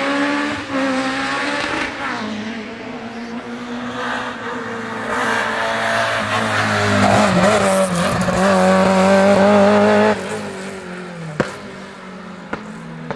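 Peugeot hatchback's engine revving hard as it races up a hill climb course, the pitch rising and falling through the gears. It grows louder to a peak, then drops off suddenly about ten seconds in. Two sharp clicks come near the end.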